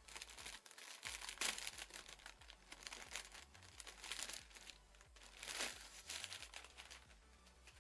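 Clear plastic bag crinkling and rustling as it is pulled off a laptop, in irregular bursts that die down near the end.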